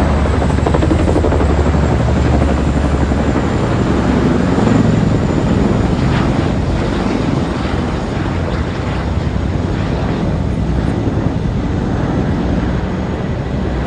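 Military helicopter flying overhead: a loud, steady rotor chop and engine noise that eases slightly in the second half.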